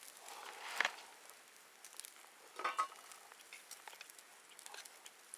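A metal utensil stirring and scraping in a cooking pot over faint sizzling. There are two louder clinks, about a second in and near the middle, the second ringing briefly.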